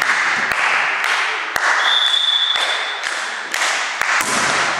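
Echoing volleyball hall noise: volleyballs smacking off hands and the wooden floor in sharp, irregular hits, over a steady din of voices, with a short high whistle tone about two seconds in.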